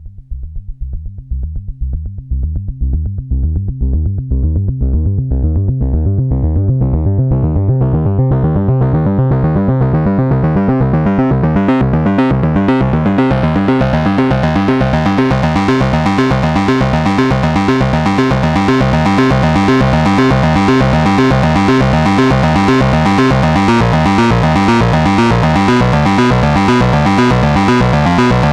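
Moog Subsequent 25 analog synthesizer playing its "Phat Arp" patch, a fast arpeggiated pattern of rapid repeated notes. It swells in over the first few seconds while the filter opens, so the tone grows steadily brighter until about halfway through, then holds.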